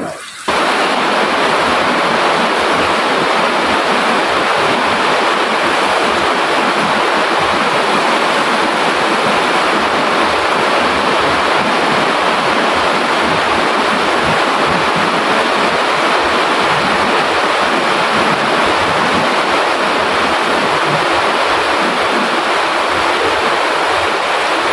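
Kitchen tap running steadily into a stainless steel sink, the water splashing over leafy greens being rinsed under it; the flow comes on full about half a second in.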